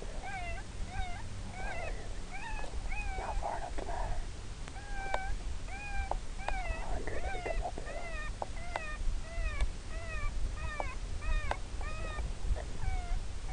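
An electronic predator call plays a distress cry on a steady loop: short, high, meow-like cries, about two a second, each rising and falling in pitch. A low rumble runs underneath.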